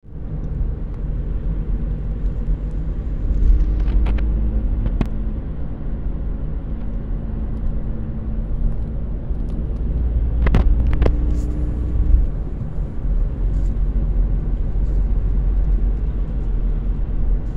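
Car engine and tyre rumble heard from inside the cabin while driving, steady and low. A few sharp clicks stand out around four to five seconds in and again about ten to eleven seconds in.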